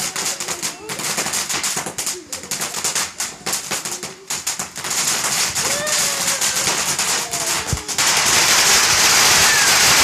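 Ground firework fountain crackling with rapid pops as it sprays sparks. About eight seconds in it gets louder and turns into a dense, continuous crackle and hiss.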